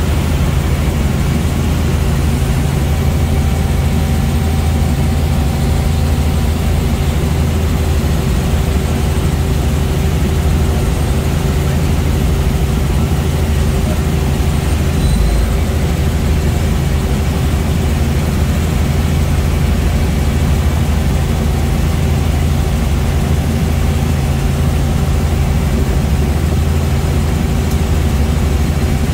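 Helicopter in flight heard from inside the cabin: a loud, steady low drone of engine and rotors with a few steady tones above it.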